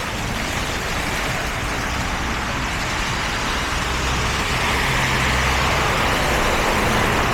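Road traffic on a snowy, wet street: a continuous hiss of tyres with a low engine hum, swelling as a vehicle passes about five seconds in.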